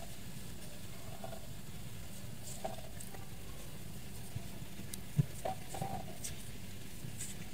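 Faint handling sounds of crochet work, a hook and yarn being worked, with a few soft ticks and scratches; the sharpest click comes about five seconds in. A low steady hum runs underneath.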